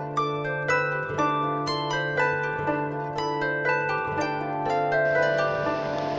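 Background music of plucked string notes, about two a second, ringing out over a sustained low note. A steady hiss comes in about five seconds in.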